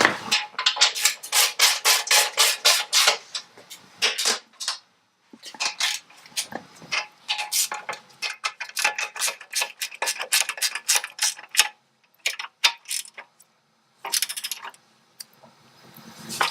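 Hand ratchet wrench tightening the rear fender bolts on a Harley-Davidson: quick runs of ratchet clicks, stopping and starting several times as the wrench is swung back and forth.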